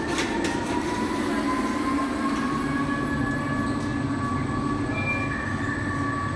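Large mechanical carousel turning: a steady rumble from its drive machinery, with a thin whine that slowly rises in pitch.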